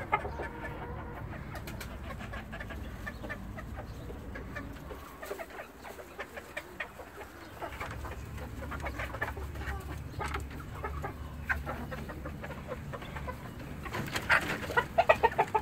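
Chickens clucking in short scattered calls, becoming louder and busier near the end, over a low steady hum.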